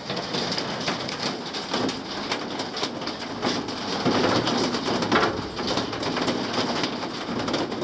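Rain falling: an even hiss with many scattered sharp taps of drops.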